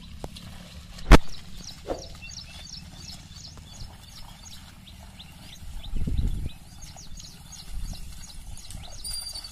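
A pair of bullocks dragging a wooden plough through flooded paddy mud, with low sloshing splashes around six and eight seconds in, against birds chirping steadily. One sharp crack comes about a second in.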